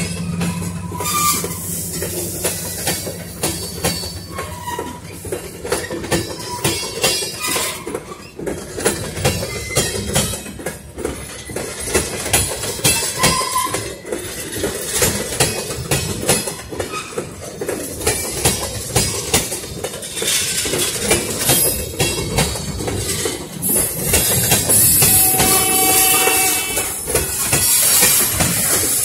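Loaded freight tank cars rolling slowly past: steel wheels clicking and clanking over the rail joints, with short, thin wheel squeals now and then. A low hum fades out in the first few seconds.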